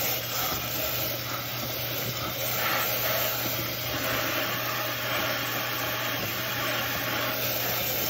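Kitchen faucet spray running onto a plastic dishwasher filter and its mesh plate in a stainless steel sink: a steady rushing and splashing of water, rinsing the filter clean.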